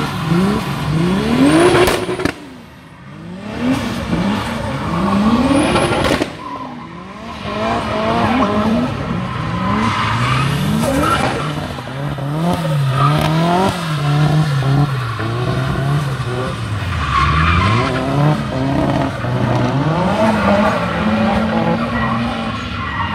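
Drift car engines revving hard in quick rising and falling sweeps as the cars slide sideways, with tyres skidding on wet tarmac. The sound drops away briefly twice, about two and six seconds in.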